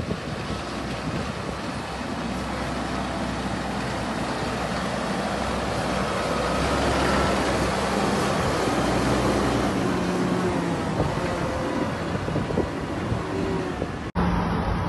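JCB Fastrac tractor's diesel engine running as it pulls a loaded flatbed trailer past, growing louder toward the middle and easing off again.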